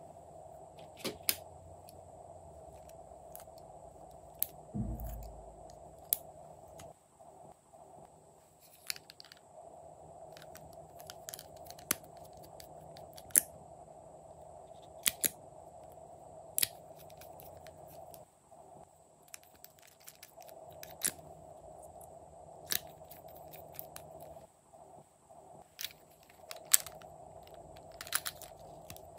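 Small plastic cosmetic cases (lipsticks, lip-gloss bottles) handled and opened, giving scattered sharp clicks of caps and lids, with a low thud about five seconds in, over a faint steady hum.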